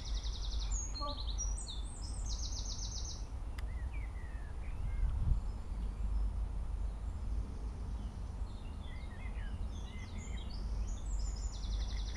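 Songbirds singing, with high rapid trills repeated several times and scattered short chirps between them, over a steady low rumble.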